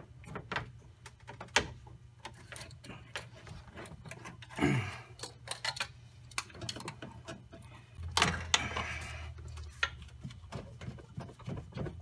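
Hand tools clicking and clinking as pliers are fetched and brought to the coolant hose clamps, with a louder clatter about eight seconds in, over a steady low hum.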